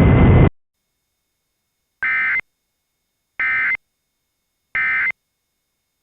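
Loud static hiss that cuts off about half a second in, then three short identical bursts of Emergency Alert System SAME data tones, each under half a second and about 1.4 s apart: the end-of-message signal that closes the alert.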